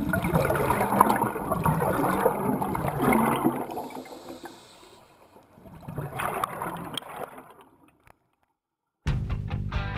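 Scuba diver's exhaled bubbles gurgling and rumbling past an underwater camera, in two exhalations about five seconds apart. The sound cuts off and background music starts near the end.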